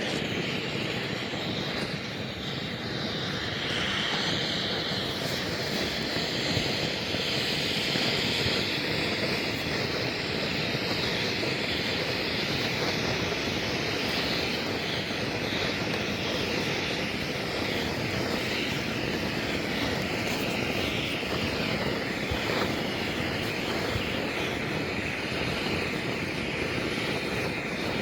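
Enola Gaye Ultimate Match pull-pin fire starter burning like a flare, a steady even hiss that carries on unbroken as it lights a campfire lay.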